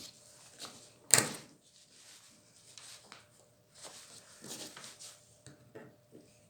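Hands working at the small spring and plastic clip inside a break-barrel air rifle, making faint clicks and scrapes, with one sharp click about a second in.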